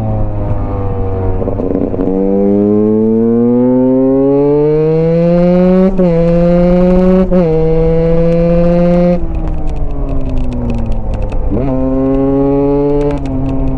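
Husqvarna single-cylinder dirt bike engine under hard acceleration, its pitch climbing with two quick upshifts about six and seven seconds in, holding high, then dropping as the throttle closes, with a short rev blip from a downshift near the end.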